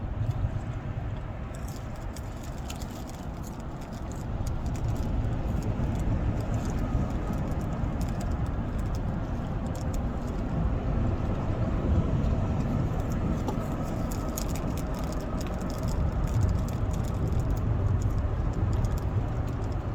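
Wind rumbling on the microphone with rain falling, many irregular light ticks of drops from about a second and a half in.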